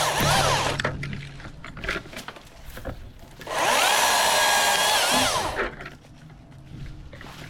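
Milwaukee top-handle battery chainsaw revving in short trigger pulls: its high electric motor whine winds down at the start, then runs again for about two seconds from about three and a half seconds in, rising and then falling away. Scattered knocks and clicks between the runs.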